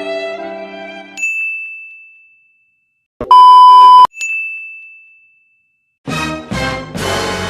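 Sound effects played back to back. The tail of a music clip ends about a second in with a single bright ding. Then comes a loud, steady, one-second censor beep that cuts off abruptly, followed by another ding ringing out. Near the end a new effect starts with a couple of quick hits and a dense, noisy sound.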